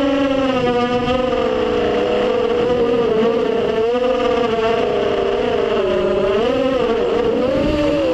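FPV racing drone's electric motors and propellers whining, the pitch rising and falling again and again as the throttle changes through turns, heard from the drone's onboard camera.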